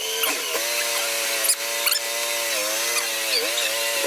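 A small engine running steadily, its pitch sagging briefly twice near the end, with a few short high squeaks about halfway through.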